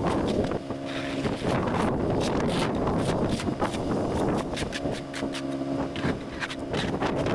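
Pickup truck engine running, its steady note fading in and out, under heavy wind noise on the microphone and many short sharp clicks.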